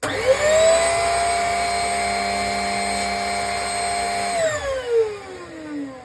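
Smarock S10 Pro handheld mattress mite vacuum switched on, its motor whining up to speed almost at once and running steadily. After about four seconds it is switched off and spins down with a falling whine.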